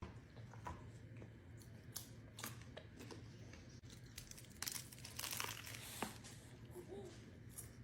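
Crinkly snack packaging being handled: faint crinkling and rustling with scattered small crackles, thickest about five seconds in.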